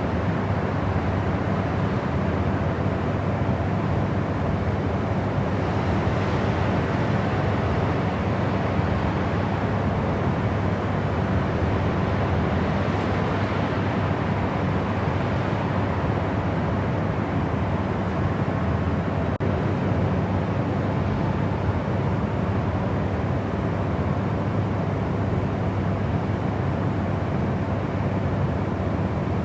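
Steady white noise: an even, unchanging rushing hiss, fuller in the low and middle range than in the highs.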